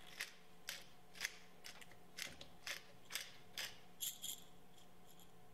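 Metal pepper mill twisted by hand, grinding pepper in a quiet series of short rasping clicks, about two a second.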